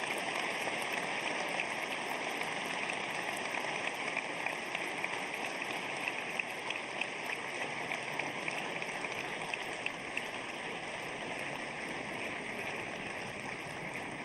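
Large audience applauding: dense, steady clapping that eases slightly in the last few seconds.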